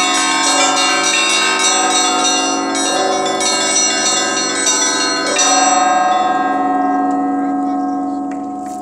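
Russian Orthodox church bells rung from the belfry: small bells struck in a quick rhythm over the deep ring of larger bells. A last stroke about five seconds in rings on and fades away.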